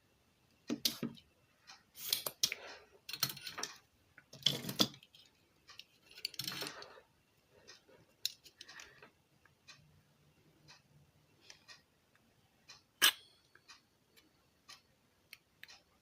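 Small hand tools working on a car stereo's circuit board: several short scrapes and rustles in the first seven seconds, light ticks and taps, then one sharp click about 13 seconds in.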